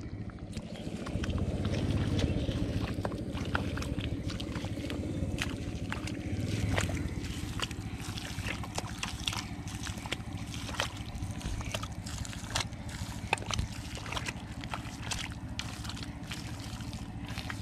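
Hands squelching and digging through wet mud, with many short wet clicks and sucking sounds, over a steady low rumble.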